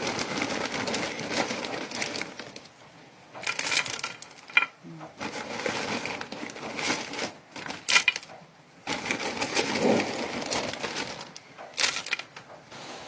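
Handfuls of small pebbles poured and spread by hand, clattering and rattling in irregular bursts with a few sharp clicks and short pauses between them.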